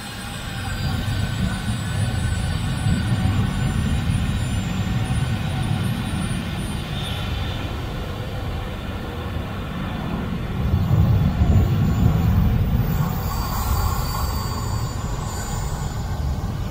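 Jet engines of a Boeing 737-800 running as it taxis along the runway: a steady low rumble with a faint high whine, growing louder about a second in and again around ten to twelve seconds in.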